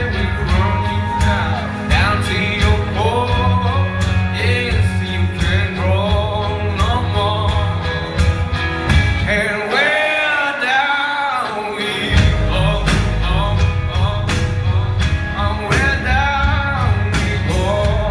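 Live rock band playing, with a male lead singer and guitar, heard from within the crowd in a large hall. About nine and a half seconds in, the bass and drums drop away for a couple of seconds, leaving the voice on its own, then come crashing back in.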